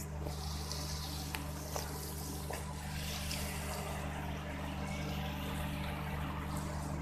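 Steady splashing of water pouring from a ship's overboard discharge outlet into the dock water, over a steady low machinery hum.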